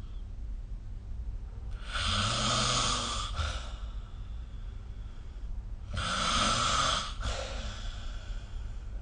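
A sleeping person snoring: two snores about four seconds apart, each lasting just over a second.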